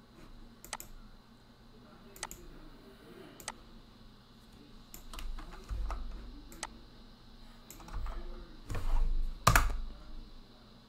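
Scattered clicks of a computer keyboard and mouse, one every second or so. The loudest comes near the end, with a low thud under it.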